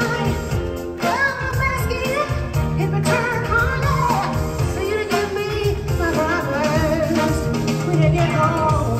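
A woman singing lead over a live band of keyboard, bass, electric guitar and drums, with a steady bass and drum beat under her melody.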